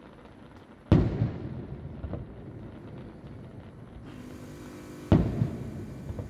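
Aerial firework shells bursting about a kilometre away: two loud booms about four seconds apart, each followed by echoing rumble and a few smaller pops.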